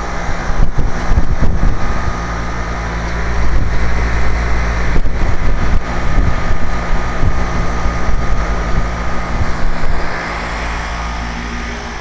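Central air conditioner's outdoor condenser unit running: a steady motor hum under a rush of air from the condenser fan, easing slightly near the end. The unit is running again after its burnt-out run capacitor was replaced.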